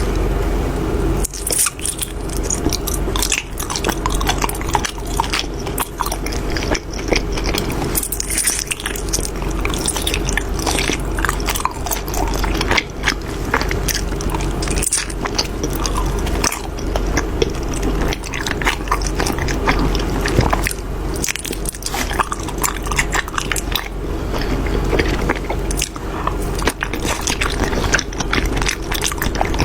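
Close-miked eating: bites and chewing of a giant egg tart and a chewy glutinous-rice dessert, with many small crunches and sticky, wet clicks coming irregularly.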